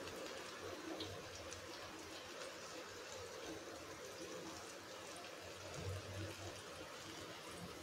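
Faint room ambience: an even low hiss with a few soft ticks and no distinct event.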